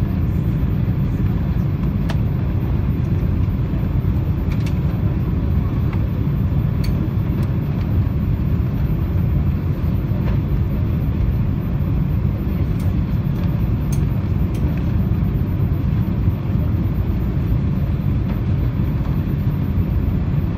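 Steady low roar of an Airbus A340's engines and airflow, heard inside the passenger cabin during the descent to land, with a few faint clicks.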